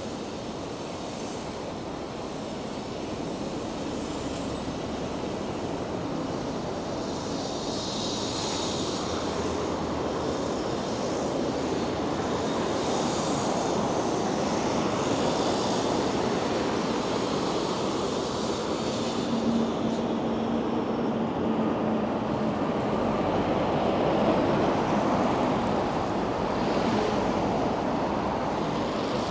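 Steady rushing road and wind noise from riding a bicycle through city traffic, slowly growing louder, with a brief low engine hum about two-thirds of the way through.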